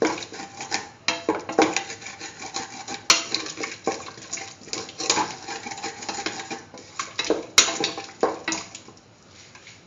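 A utensil stirring and scraping in a pan of chicken, tomato and potato pieces with water just added, in repeated clinks and scrapes against the pan. The stirring dies down about nine seconds in.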